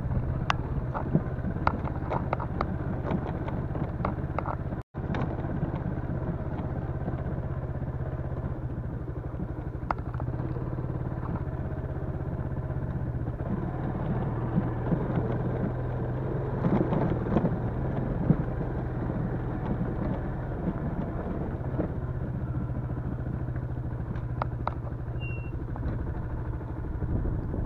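Yamaha Crypton-X's small single-cylinder four-stroke engine running at a steady speed while riding off-road, with frequent clicks and rattles. The sound cuts out for an instant about five seconds in.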